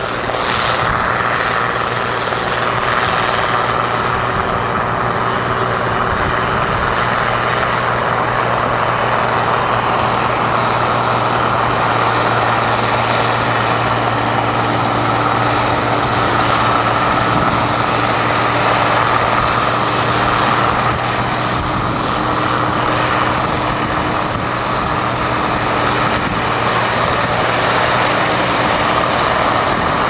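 Massey Ferguson 750 combine harvester working flat out cutting and threshing wheat: a steady, unbroken engine and machinery drone with a low hum and a higher whine.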